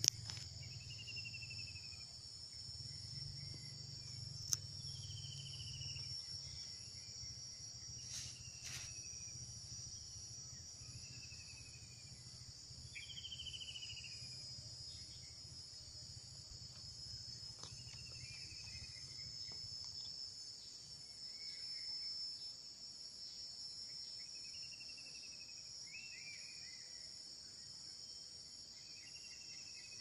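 Steady high-pitched drone of insects, with a short falling chirp repeated about every two seconds and a few sharp clicks.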